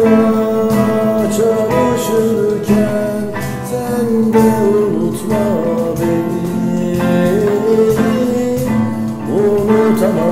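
Male voice singing a slow, held Turkish melody, accompanied by a strummed acoustic guitar and a steady cajon beat.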